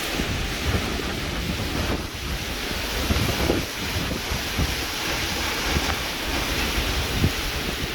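Heavy rain falling steadily, with wind buffeting the microphone in low, irregular gusts.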